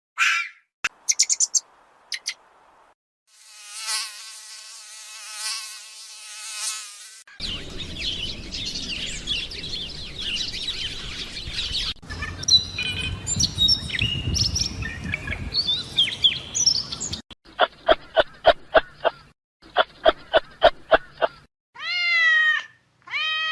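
A run of different animal sounds cut one after another: an insect buzzing, then a dense chorus of birdsong, then a string of rapid, even chirps, and near the end a cat meowing.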